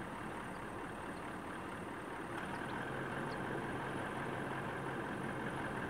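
Pacific National BL-class diesel locomotives approaching a freight train at low speed: a distant steady engine rumble. About two seconds in, a steady higher whine and a low drone join it.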